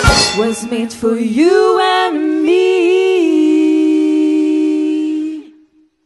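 The band stops on a final hit and a female singer carries on alone, unaccompanied, through a short phrase into one long held closing note with slight wavers. The note fades out about five and a half seconds in.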